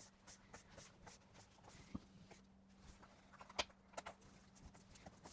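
Faint handling sounds, scattered small clicks and short rustles, as a weather shield's tape liner is peeled and the shield pressed onto the door frame, with one sharper tick about three and a half seconds in, over a low steady hum.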